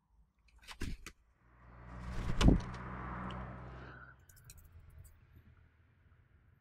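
Eurasian jays moving at a twig nest on a wooden platform. A couple of sharp clicks come near one second. Then a rustling rush, like wings, builds to a single knock about two and a half seconds in, where a jay lands on the wooden beam, and dies away about a second later.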